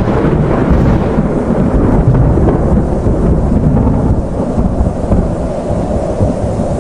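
Thunderstorm: a long, loud rolling rumble of thunder over rain, easing slightly toward the end.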